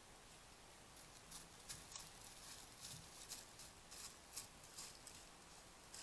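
White-tailed deer stepping through dry leaf litter: faint, irregular crunches and rustles that begin about a second in, over a steady hiss.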